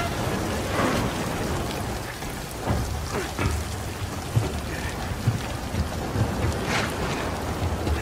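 Steady heavy rain, with low thuds and knocks scattered through it, the sharpest about seven seconds in.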